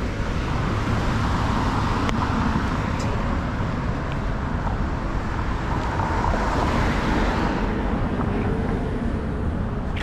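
City street traffic: a steady wash of car tyre and engine noise, swelling as a car goes by and easing off near the end.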